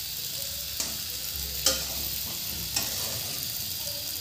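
Large river prawns sizzling steadily in hot mustard oil in a metal pan while a metal ladle stirs them. The ladle clacks against the pan three times, loudest about a second and a half in.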